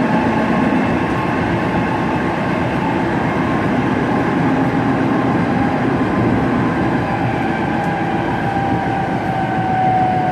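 Tokyo Metro 07 series electric train running, heard on board: a steady rumble of wheels on rail with the motor whine of its VVVF inverter drive on top. The whine falls slowly in pitch over the last few seconds as the train slows.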